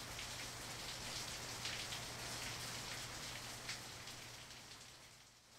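Steady rain pattering on hard surfaces, thinning out and dipping in level near the end.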